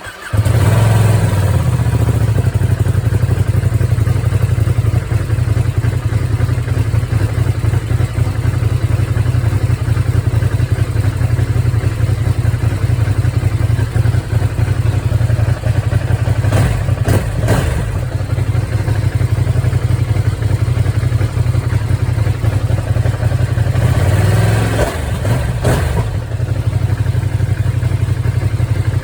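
Ducati Streetfighter V2's 955 cc Superquadro twin on its stock exhaust, catching right at the start and then idling loudly and steadily with a lumpy low pulse, briefly revved around seventeen seconds in and again about twenty-four seconds in.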